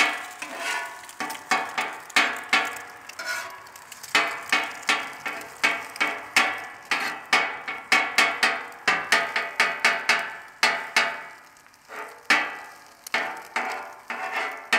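Metal spatula edge banging down again and again on the steel top of a Camp Chef flat top griddle, chopping eggs: loud, ringing metal clanks about two a second.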